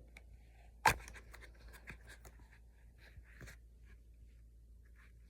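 Faint handling sounds of an accessory being worked onto a pistol's grip: light rubbing and scraping, with one sharp click about a second in.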